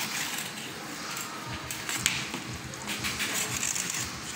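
A large pizza being slid off its metal baking pan onto a wooden serving tray, with scraping and light knocks of pan and spatula and one sharp clack about two seconds in, over a steady hiss.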